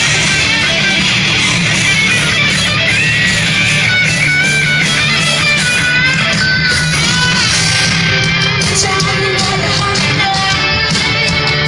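Live rock band playing loud through a concert sound system, guitar to the fore, heard from within the audience.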